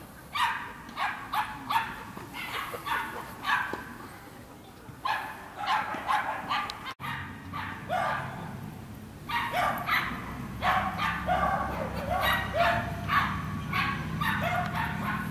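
Dog barking repeatedly in short runs, the barks coming thicker and faster in the second half.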